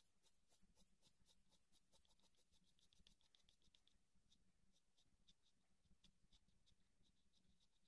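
Graphite pencil scratching faintly on paper in quick, short shading strokes, several a second, laying in light shading.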